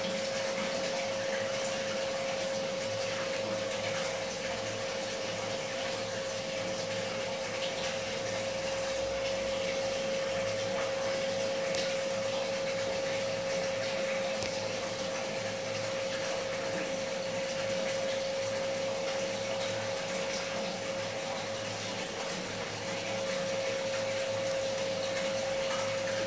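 Aquarium pump running, a constant hum over a steady hiss of moving water.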